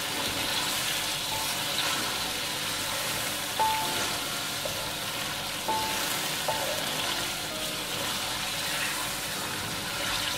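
Ground dried-chili paste sizzling steadily in hot oil in a steel wok while a wooden spatula stirs it; this is the sauté stage, frying the chili until it turns crisp. Twice, about two seconds apart, the spatula knocks against the wok with a short ring.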